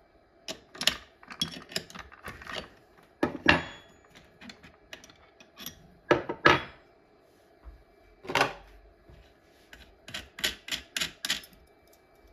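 Irregular sharp metallic clicks and clinks of small milling cutters, collet and hand tools being handled at a bench milling machine while the cutter is changed. The clicks come in scattered clusters, with a quick run of them near the end.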